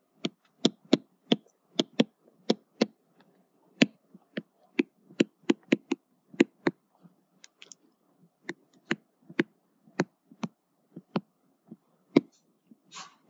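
A pen stylus tapping and clicking on a tablet's surface while handwriting, in irregular sharp taps about two or three a second.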